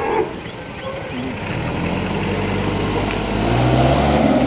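An engine running, a steady low hum that comes in about a second and a half in and grows louder toward the end.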